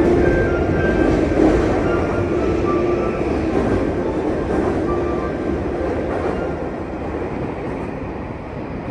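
Running noise heard inside a Tokyu 3020 series electric train car, a dense rumble with steady hum tones from its Mitsubishi SiC-MOSFET VVVF traction equipment. The tones fade about halfway through as the overall sound slowly gets quieter.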